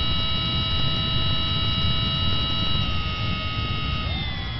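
Electric motor and propeller of a small radio-controlled airplane running steadily in flight, a whine of several steady tones over a low rumble. The pitch steps down about three seconds in and drops again near the end as the motor slows.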